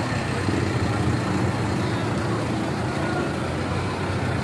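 Steady low engine hum of a slow-moving vehicle pulling a parade float, with faint voices in the background.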